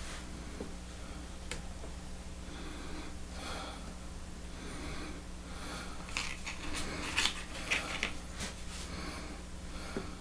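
A man breathing heavily through his nose, with soft puffs and sniffs that come thickest about six to eight seconds in, along with light handling sounds from his hands working a small part on cardboard. Under it all runs a steady low hum.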